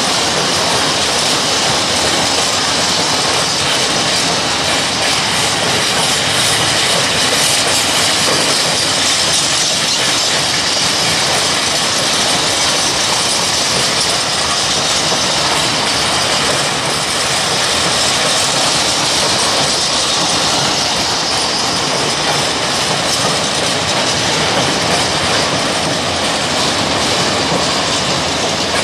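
A long rake of open-top coal wagons (węglarki) rolling steadily past, their wheels running loudly over the rails in an unbroken stream of track noise.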